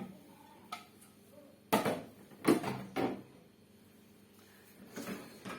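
Parts of a dishwasher being handled: a faint click, then three clunks about half a second apart, each ringing briefly.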